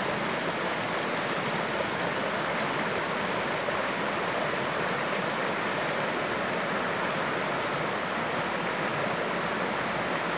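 Shallow river rapids rushing over and between boulders: a steady, even wash of flowing water.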